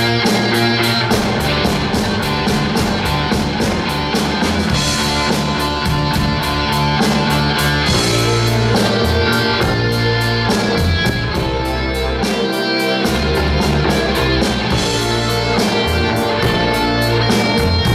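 Rock band playing live: electric guitars, bass guitar and keyboard over a drum kit keeping a steady beat of about four cymbal strokes a second. The low end drops out for a moment a little past the middle.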